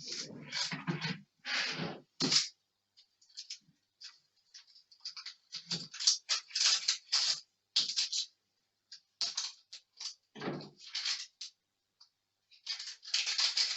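A kitchen knife cutting into a whole onion while its dry, papery skin is worked off. The result is irregular scraping, crackling and tearing sounds in quick clusters, with a few duller knocks.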